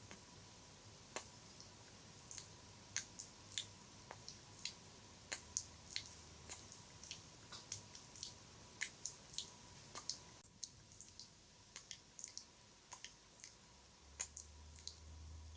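ASMR wet mouth sounds close to the microphone: soft, irregular clicks and smacks of the tongue and lips, about two or three a second.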